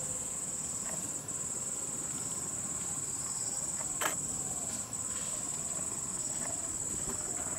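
Steady, high-pitched drone of an insect chorus, dipping briefly twice. There is one sharp snap about four seconds in.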